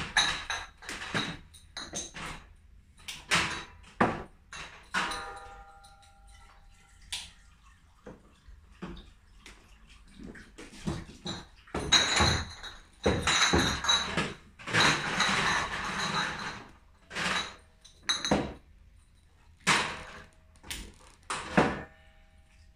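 Glass beer bottles clinking and knocking as they are handled for bottling, one clink ringing on briefly about five seconds in, with a few seconds of running water in the middle.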